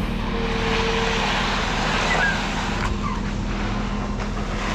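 Concrete mixer truck's diesel engine running steadily: a low, even hum with a broad hiss over it.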